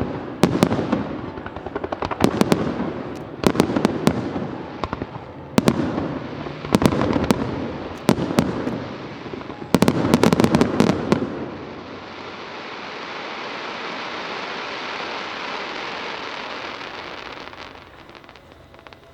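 Fireworks shells bursting in rapid volleys of sharp cracks and booms for about eleven seconds, then a steady rushing noise that swells and fades away near the end.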